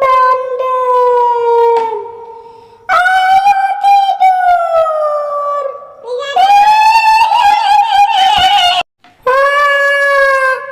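A woman's high, drawn-out ghostly wailing in imitation of a kuntilanak: four long held cries, each wavering and sliding in pitch, with short breaks between them.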